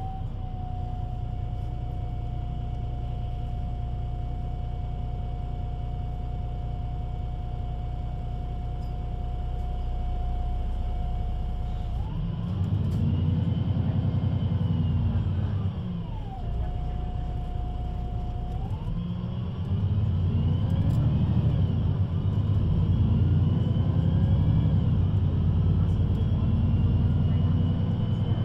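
VDL Citea LLE 120 city bus idling with a steady whine, then revving up about twelve seconds in, dropping back to idle, and pulling away again with rising and falling pitch as its Voith automatic gearbox shifts.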